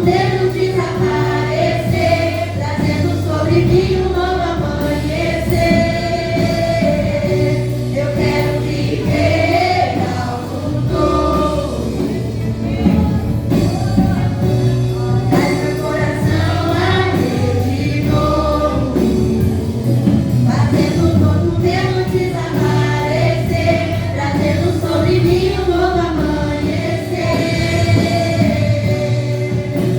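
Gospel worship song: a group of singers in harmony over a full band with bass and drums.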